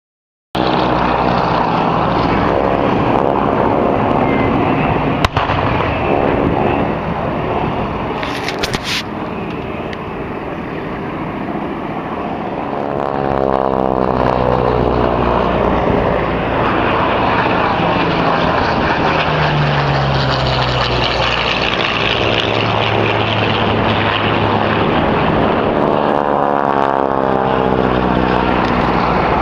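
Single-engine propeller aircraft droning as they fly display passes, the sound sweeping in pitch as a plane passes by about halfway through and again near the end. A single sharp crack about five seconds in.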